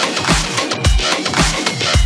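Background music with a heavy bass drum beat about twice a second.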